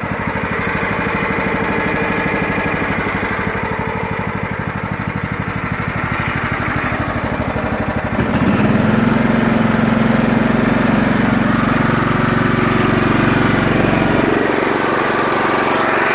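John Deere LT155 lawn tractor's single-cylinder Kohler Command engine running at a low idle with an even, rapid pulse, then about halfway through the throttle is pushed up and it runs faster and louder, holding steady. It runs smoothly.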